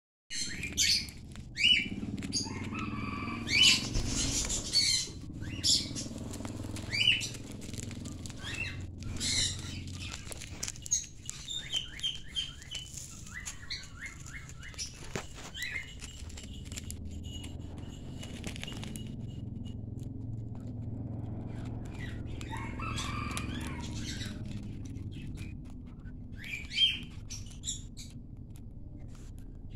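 Small parrots, lovebirds and a cockatiel, giving many short sharp chirps and squawks, thickest in the first half and again near the end, mixed with short rustles.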